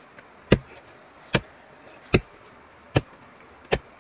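A blade chopping down through tree roots in earth, five evenly spaced strikes about one every 0.8 s, cutting the root away to clear the hole.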